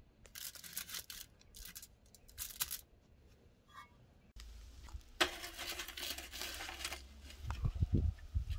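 Aluminium foil lining a baking tray crinkling in several short bursts as soft braided dough rolls are laid on it.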